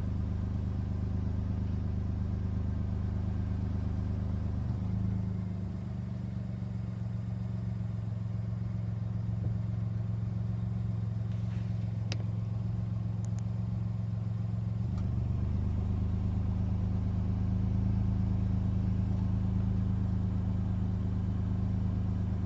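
A steady low engine hum, like a motor vehicle running, that shifts slightly in pitch about five seconds in and again about fifteen seconds in.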